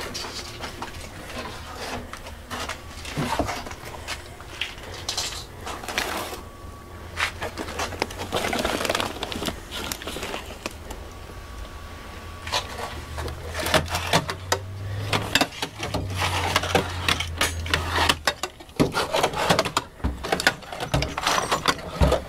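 Rummaging through tools and clutter on a workbench: irregular clatter, knocks and scrapes of objects being moved and set down, with a low hum for a few seconds past the middle.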